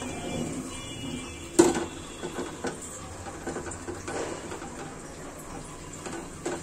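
A steel bowl knocks sharply against a cooking pan as chopped potato, tomato and red lentils are tipped in, about one and a half seconds in, with a few lighter clinks after.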